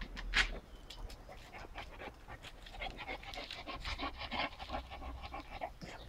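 Shar Pei panting in quick, rapid breaths, heaviest from about three to five seconds in. A sharp click sounds about half a second in.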